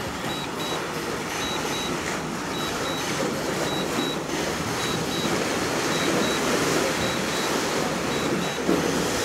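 Short high beeps in pairs, about one pair a second, from a DJI drone remote controller signalling that the Mavic Air 2 is on automatic Return-to-Home, over a steady rushing background noise.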